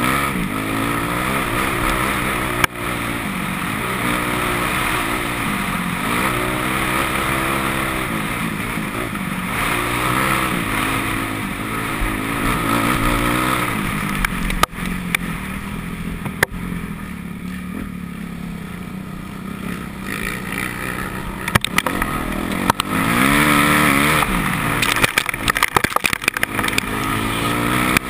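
Motocross bike engine under hard riding, revving up and dropping back repeatedly as the rider accelerates, shifts and backs off, with a quieter stretch a little past the middle. Several sharp knocks cut through, most of them bunched near the end.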